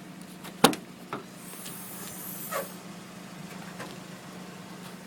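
A steady low hum with a sharp knock under a second in, followed by a lighter click.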